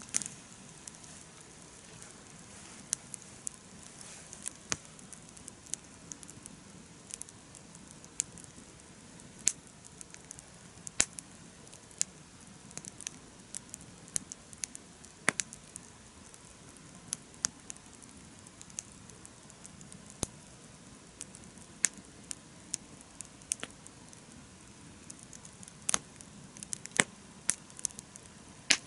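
Wood campfire burning steadily, crackling with irregular sharp pops over a faint hiss.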